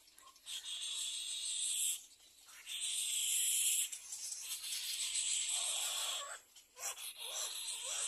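Little egret nestlings giving harsh, hissing begging calls in a series of long bursts, each a second or two long, with short breaks between.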